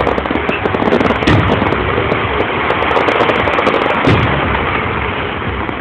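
Fireworks display: a dense run of rapid pops from bursting star shells, with louder bangs about a second in and again about four seconds in.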